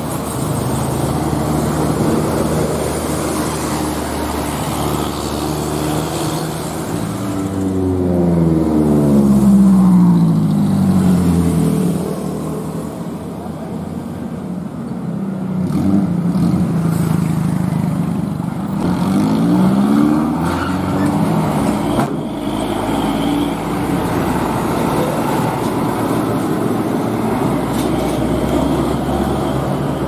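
Heavy diesel vehicles, a tour bus and container trucks, driving past with a steady engine rumble; twice the engine note glides noticeably in pitch as a vehicle goes by.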